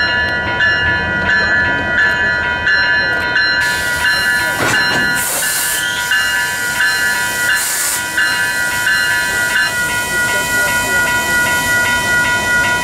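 Diesel locomotives of a Metra passenger train and a Canadian Pacific freight idling together with a steady low rumble, while a bell dings in an even rhythm of about three strokes every two seconds. About three and a half seconds in, a loud hiss of compressed air starts and keeps going, with two sharper blasts of air a few seconds apart.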